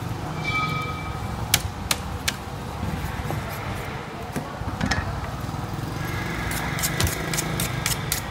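Meat cleaver chopping through a side of pork on a wooden table: sharp knocks, three about half a second apart, then a quicker run near the end. Under them runs a steady low engine hum, with a short high tone near the start.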